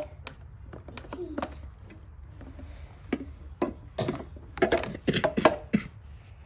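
Scattered short clicks and knocks of plastic mini-fridge parts being handled and fitted on, coming thicker about two-thirds of the way through.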